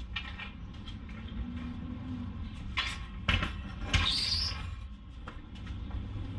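Floor jack being moved and set in position under a car: a few sharp metal knocks and clanks about three to four seconds in, followed by a brief high squeak.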